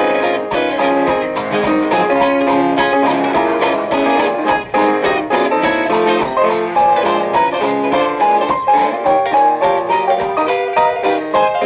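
Traditional jazz band's rhythm section: guitar and piano playing a lively passage over drums that keep a steady cymbal beat of about two strokes a second.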